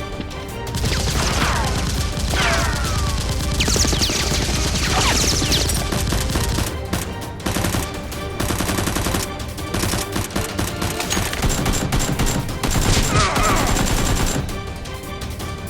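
Dense bursts of rapid automatic gunfire, the kind of shot sound effects laid over a Nerf battle, with a few falling whooshes, over background music. The firing eases off near the end.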